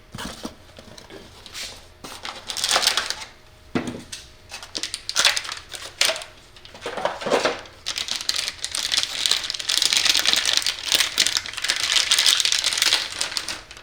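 A new hard drive being unpacked: its box and plastic packaging are handled, with scattered clicks and rustles, then a long stretch of dense plastic crinkling in the second half.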